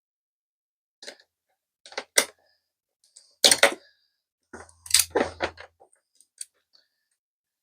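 A string of short clicks, clacks and knocks from cables, terminals and hardware being handled while an inverter is wired to the battery. There is a denser clatter with a brief low hum about five seconds in.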